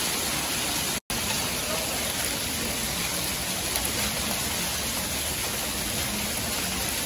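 Hail and heavy rain pelting down steadily onto a shingled roof, a deck and spruce branches in a dense, even rush of noise that drops out for an instant about a second in.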